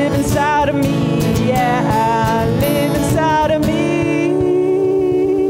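A woman sings over strummed acoustic guitar and cajón, gliding between notes without clear words. About four seconds in she settles into one long held note.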